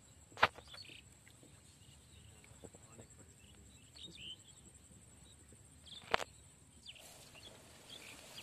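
Two sharp wooden knocks about six seconds apart as the bamboo poles of a lift-net frame are worked by hand, with small birds chirping and a steady high whine behind.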